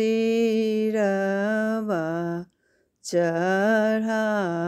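A woman singing a Bajjika lagan folk song, a wedding-ritual song, alone and unaccompanied in long, slowly drawn-out notes. A brief silence about halfway splits two sung phrases.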